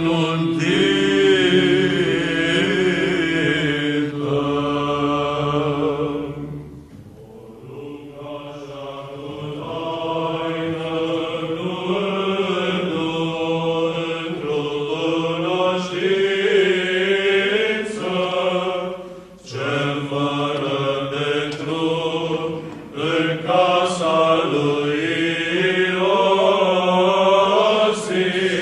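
Orthodox Byzantine-style church chant in Romanian: a slow, drawn-out melody sung over a steady held drone (ison). The singing dips briefly about seven seconds in and again around nineteen seconds.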